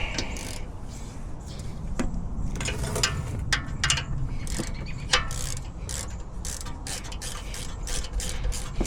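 Hand ratchet wrench clicking in irregular runs as a fastener is turned.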